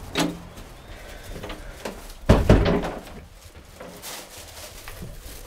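A glazed uPVC front door being shut: a sharp click near the start, then a heavy double thud of the door meeting the frame and latching about two and a half seconds in.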